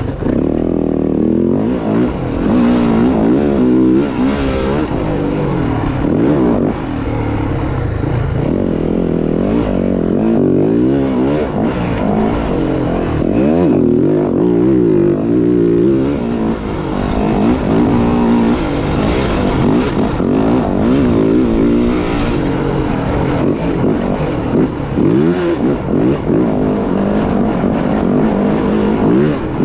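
Dirt bike engine being ridden hard, its pitch climbing and dropping again and again as the throttle is opened and closed.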